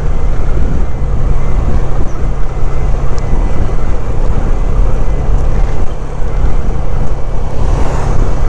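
Motorcycle riding at road speed: steady wind rumble on the microphone over the engine's running drone.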